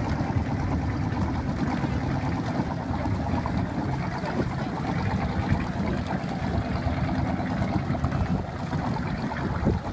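Classic inboard boat engines idling at the dock with a steady low burble.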